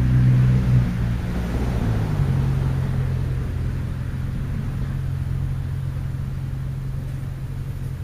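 A motor vehicle's engine, heard as a low hum that drops in pitch about two seconds in and then slowly fades.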